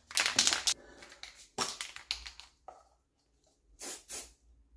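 Aerosol can of weldable primer being sprayed in three short hisses, the first the loudest.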